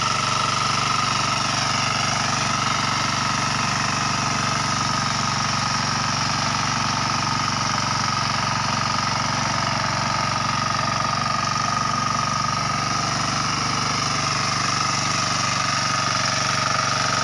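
Kuliglig hand tractor's small single-cylinder engine running steadily under load as its cage wheel churns through a muddy rice paddy, with a constant high whine over the engine note.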